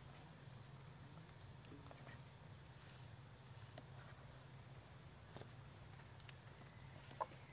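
Faint outdoor insect sound: a steady high drone with a short higher chirp repeating about once a second, over a low hum. Scattered faint clicks, with one sharper click near the end.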